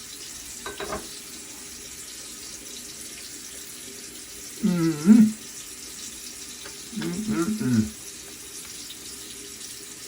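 Bathroom tap running steadily into a sink, with a man's voice sounding briefly twice without words, about halfway through and again a couple of seconds later.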